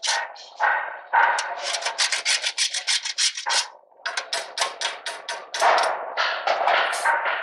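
A cooking spoon scraping rapidly back and forth against a pan while stirring thick chutney, with a short pause a little over halfway through.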